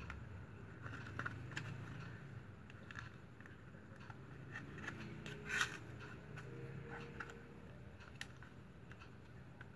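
Plastic strap crackling and clicking in the hands as it is wound and tucked around a wooden fan handle: scattered small clicks, with one louder crackle about halfway through, over a steady low hum.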